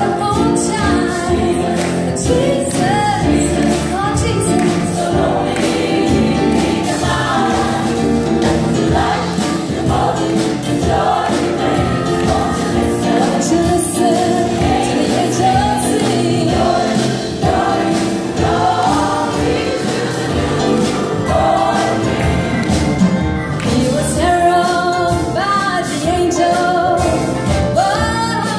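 Live gospel choir singing an upbeat song, with a female lead voice on microphone and a band keeping a steady beat.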